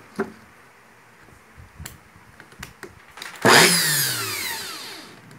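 Small clicks of parts being handled, then about three and a half seconds in the opened electric drill's brushed motor is switched on in a short burst and winds down, its whine falling over about a second and a half. It is a test run after cleaning, with carbon brushes worn short that let it spark a little.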